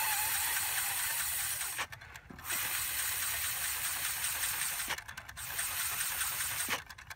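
Air hissing through a brass tube into a homemade syringe-piston engine as a man blows into it to drive the model, in three long blows with short breaks about two and five seconds in.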